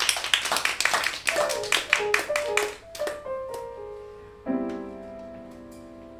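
A grand piano plays a few stepping notes under scattered clapping from a small audience. About four and a half seconds in, a piano chord is struck and held.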